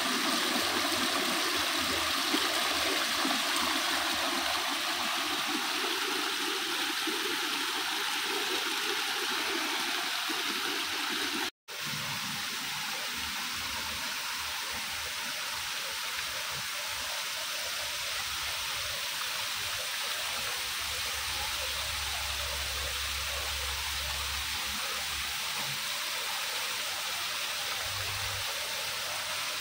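Water running and splashing over rocks in a shallow cascade, then a landscaped rock waterfall pouring into a pond, a steady rushing hiss. The sound cuts out for an instant about a third of the way in, where the scene changes.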